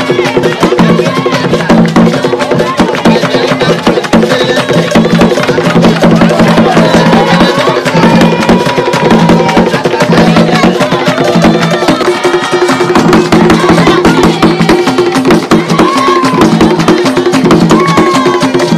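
Traditional Ewe drumming: drums and a clicking wood-block-like percussion line play a dense, steady, repeating rhythm, with voices calling over it.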